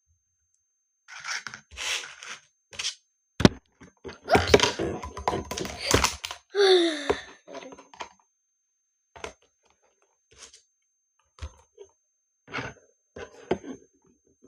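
Slime and its plastic tub being handled: wet crackling and squishing in patches, a sharp click about three and a half seconds in, a dense stretch of crackle, a brief squeak, then scattered small clicks.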